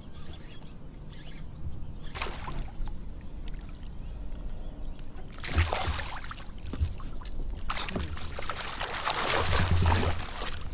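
Water splashing and sloshing beside a kayak in bursts, once about two seconds in and then almost without pause from about five seconds until near the end, as a hooked pike thrashes at the surface while being reeled in.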